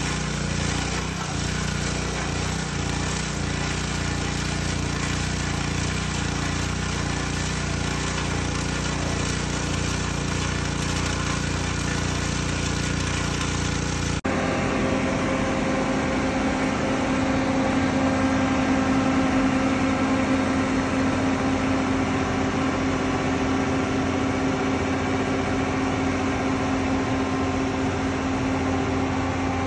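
Petrol-engined abrasive rail saw running steadily as its cut-off disc cuts through a steel rail. About fourteen seconds in it gives way abruptly to the steady drone of a road-rail rail-welding vehicle's engine, with a strong hum.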